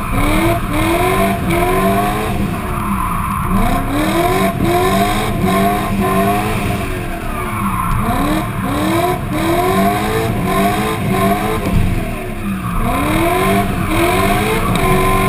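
Drift car's engine revving hard, its pitch climbing in quick repeated surges and dropping back every few seconds, with tyres squealing as the car slides through the corners.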